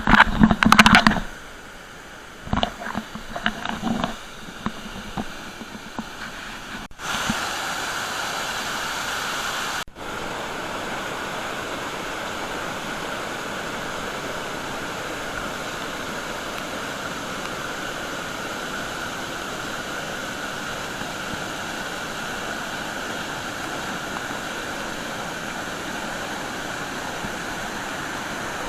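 Waterfall rushing steadily, an even wash of falling water. A few brief loud, irregular sounds come in the first second or so, and the sound jumps at two cuts.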